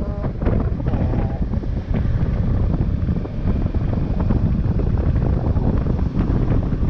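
Wind buffeting the microphone of a camera mounted on a moving motorcycle, with the motorcycle's engine running underneath.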